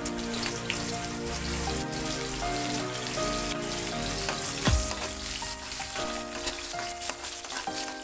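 Sliced onions sizzling and crackling in hot oil in a wok as they sauté, over background music. A single thump comes about halfway through.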